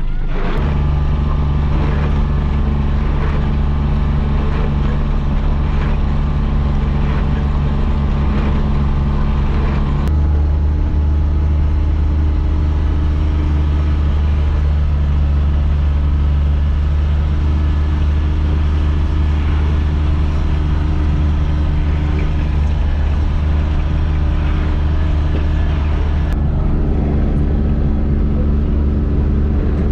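Gator utility vehicle's engine running steadily under way while towing a loaded trailer. Its note shifts about a third of the way in and again near the end.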